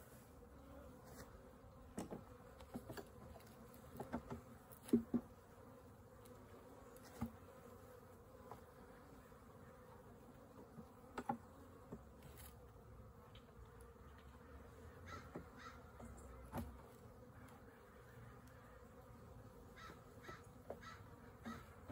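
Honeybees buzzing faintly around an opened hive, with a few sharp wooden knocks and scrapes as frames are worked out of the hive box, the loudest about five seconds in.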